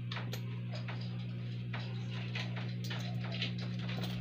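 Plastic courier mailer crinkling and crackling in irregular bursts as it is handled, over a steady low electrical hum.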